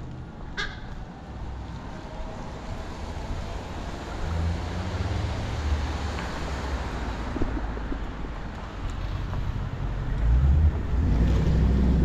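Street traffic: a car's low engine and tyre rumble that swells about four seconds in and grows louder near the end. A short high chirp sounds about half a second in.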